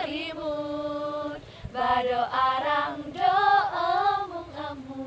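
A group of young women singing a traditional Dayak song together, with long held notes and gliding phrases.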